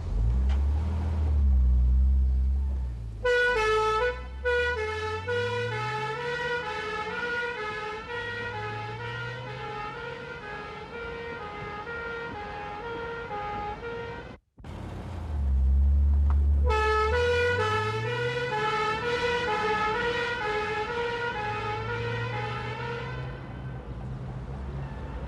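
Police car engine revving up, then a two-tone hi-lo siren switching on and alternating between two pitches about twice a second. The sequence cuts off abruptly about halfway and plays again, the siren fading away near the end.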